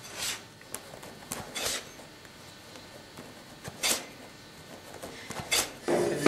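Hand-knotting wool pile on the warp of a carpet loom: a few short, scratchy strokes as yarn is pulled through and cut. Near the end a weaver's beating comb starts knocking the knotted row down against the warp in regular strokes.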